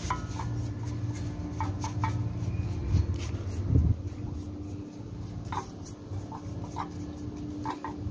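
Paint brush bristles scratching and dabbing on a welded steel-pipe stand in short, scattered strokes, over a steady low hum.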